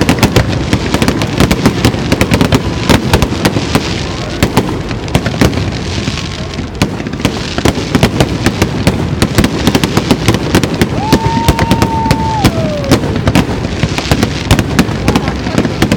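Fireworks display: a dense, continuous run of rapid bangs and crackles from shells bursting overhead. About eleven seconds in, a held whistle rises above the bangs for a second or so, then falls in pitch.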